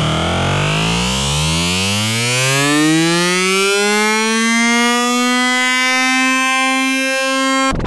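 Electronic backing music: a single sustained note slides upward in pitch over several seconds, levels off and holds, then cuts off abruptly near the end.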